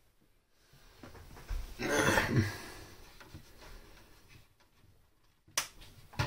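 A man's breathy exhale, lasting about a second, about two seconds in, then a sharp click near the end.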